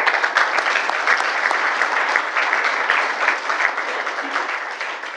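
Audience applauding: many hands clapping together, starting all at once and tapering off near the end.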